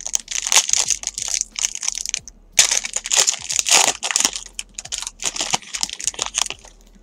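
Foil wrapper of a baseball-card pack being torn open and crinkled by hand: dense crackling in two spells, with a short pause a little over two seconds in.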